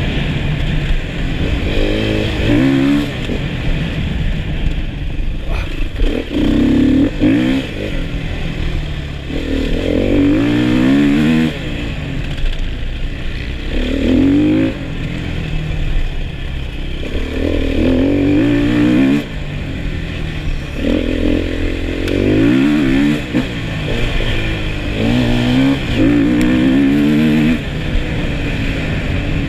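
Enduro motorcycle engine heard from on board, revving up hard and easing off again and again as the bike accelerates through the gears. The surges come about every three to four seconds.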